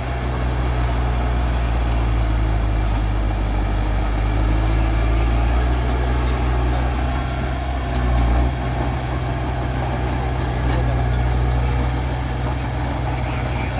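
Heavy diesel engine of an earthmoving machine running steadily with a low drone.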